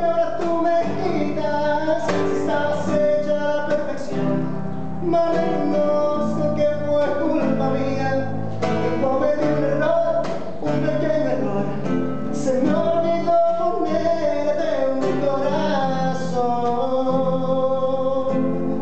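A man singing a melody while strumming chords on a cutaway classical guitar.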